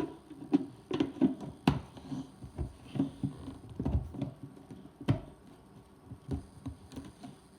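Irregular light knocks and clicks of household items being handled and set down while clearing up, with a few sharper knocks about two and five seconds in.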